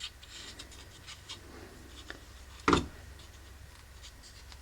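Light handling of small rifle-chassis parts: faint clicks and rubbing as a cross pin and retaining screws are worked by hand, with one short knock a little under three seconds in.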